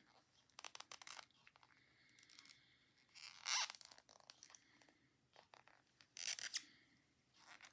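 Double-pointed knitting needles clicking and scraping together as stitches are knit two together, with yarn rubbing. There are two short, louder scraping rustles, about three and a half seconds in and again near six seconds.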